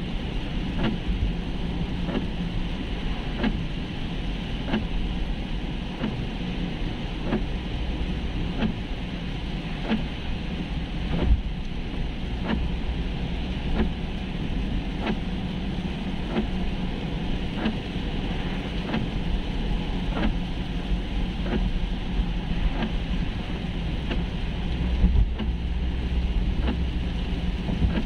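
Steady road and tyre noise heard inside a car driving on a rain-soaked road, with faint irregular ticks and two louder bumps, one about a third of the way in and one near the end.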